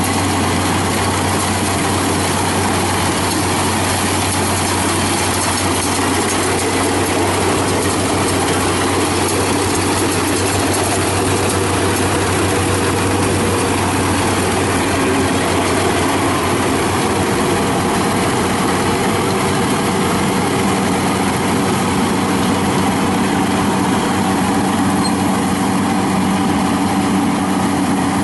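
Yanmar AW82V rice combine harvester running under load as it cuts and threshes rice: a loud, steady engine and machinery drone. Its tone shifts higher about two-thirds of the way through.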